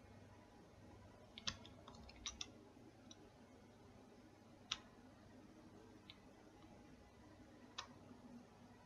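Computer mouse clicking, a handful of short, sharp clicks spread irregularly over quiet room tone, two of them close together a little after two seconds in.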